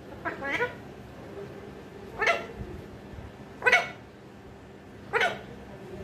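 Alexandrine parakeet giving four short calls about a second and a half apart.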